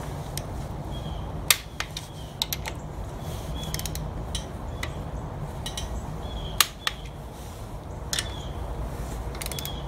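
Torque wrench ratcheting as engine mount bolts are run down on a first pass to 35 foot-pounds, with several sharp metallic clicks along the way, the loudest about a second and a half in and again near the middle.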